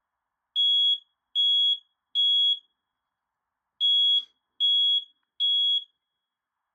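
Smoke alarm sounding its three-beep evacuation pattern: two rounds of three loud, high-pitched beeps with a pause of about a second between rounds. It has been set off by aerosol test smoke, so the detector is responding as it should.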